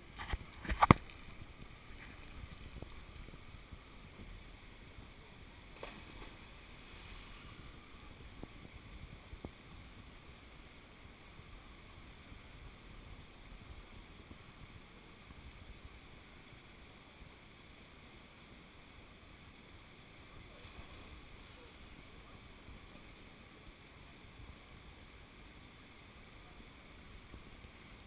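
Steady hiss of a mountain stream and small cascade, with a couple of sharp knocks about a second in and a fainter one a few seconds later.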